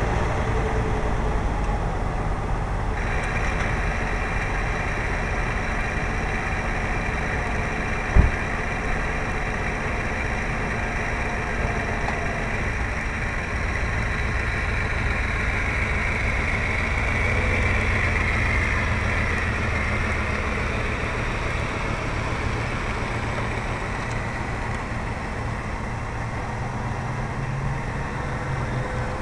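Electric motor and propeller of a radio-controlled airplane running steadily in flight, with rushing air, the pitch band swelling a little in the middle. A single sharp click about eight seconds in.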